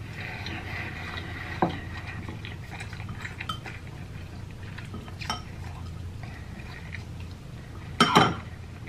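Eating instant noodles with chopsticks: a few sharp clicks of chopsticks against the bowl and quiet chewing, then one loud slurp of noodles near the end.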